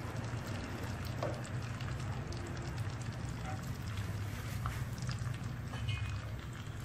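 Beaten egg frying into a thin omelette in a rectangular nonstick pan, a light crackling sizzle over a steady low rumble.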